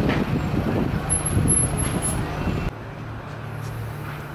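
Street traffic noise with a heavy vehicle such as a truck or bus passing. About two-thirds of the way in it cuts suddenly to a quieter street ambience with a low steady hum.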